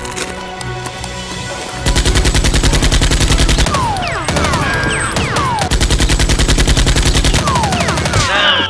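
Rapid automatic gunfire, machine-gun bursts that start about two seconds in and run almost to the end, with a short break near the middle, over background music. Falling ringing tones sound between the bursts.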